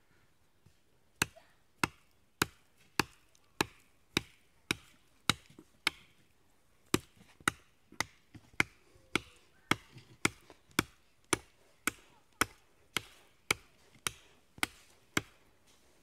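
Small green maple sapling being chopped at its base with a TOPS American Trail Maker, a large chopper blade: a steady run of sharp strikes, nearly two a second, with a short pause about six seconds in.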